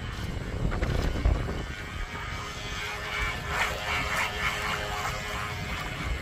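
Wind rumbling on the microphone over choppy, lapping water. Near the middle a thin motor whine from a small RC tug boat rises and fades as it passes close.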